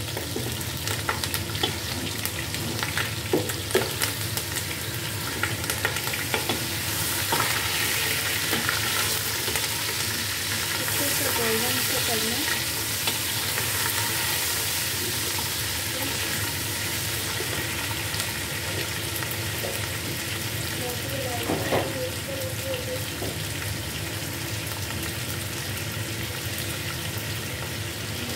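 Chicken pieces sizzling in hot oil in a nonstick pot, stirred with a wooden spoon. There are knocks of the spoon several times in the first few seconds and once about three-quarters of the way through, over a steady frying hiss.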